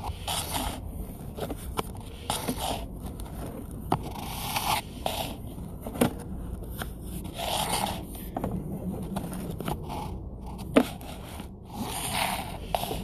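Sewer inspection camera's push cable being pulled back, scraping and rustling in uneven bursts, with a few sharp clicks and one louder knock near the end.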